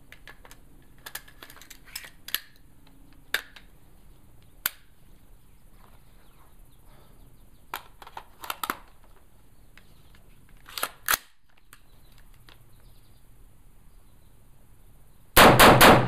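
Scattered metallic clicks and knocks of an AR-15 being put back together and readied with its standard .223 bolt, then a quick string of very loud .223/5.56 rifle shots near the end.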